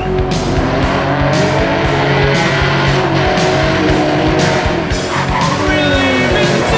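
Background music with a steady beat and a moving melody line.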